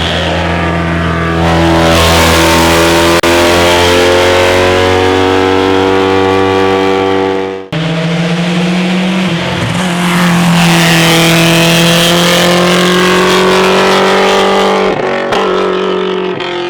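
Racing car engines running hard at high revs, one held note after another. The sound cuts abruptly about eight seconds in to a second car running at a similar pitch, which drops away near the end.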